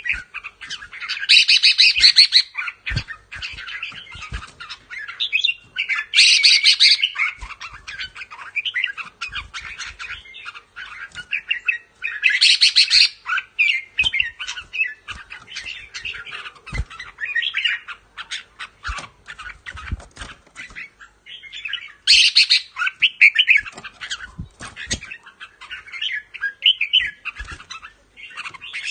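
Red-whiskered bulbul singing loud, bright song phrases four times, with quieter chattering calls between them.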